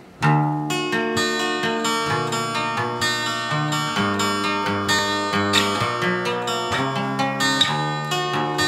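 Acoustic guitar played in a quick run of plucked and strummed notes, starting about a quarter second in, recorded in a small vocal isolation booth.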